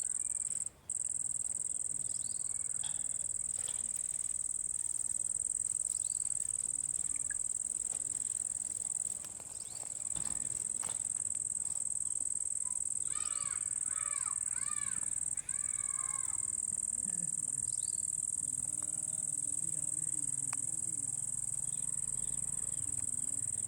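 Steady high-pitched insect drone throughout, with a short run of warbling parrot calls about thirteen seconds in.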